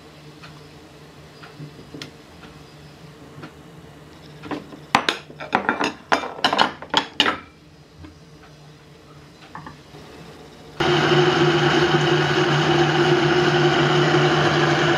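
A run of clunks as chunks of fresh coconut drop into a Vitamix blender jar of milk, then about two-thirds of the way through the blender motor starts and runs steadily and loudly, blending the coconut into the milk.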